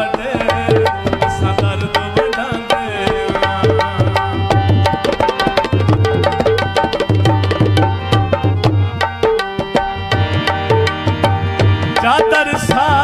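Instrumental passage of Punjabi folk music: tabla-type hand drums play a fast, busy rhythm with a deep bass stroke recurring, under melody instruments holding steady notes.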